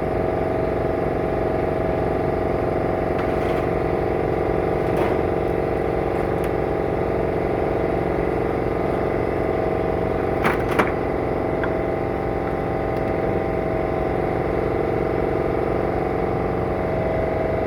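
Steady mechanical hum with several constant pitches, unbroken throughout, with two quick sharp clicks about ten and a half seconds in.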